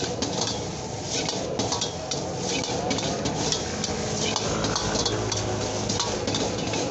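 A metal ladle scraping and clanking against a wok in repeated quick strokes as fried rice is stir-fried and tossed over high heat, with the rice sizzling under it.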